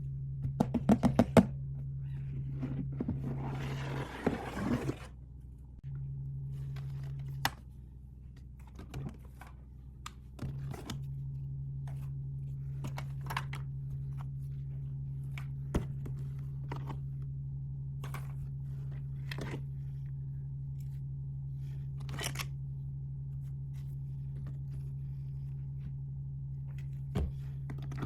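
Packaging being handled and opened. There is a quick run of clicks about a second in, then a couple of seconds of tearing and crinkling, then scattered taps and clicks, all over a low steady hum.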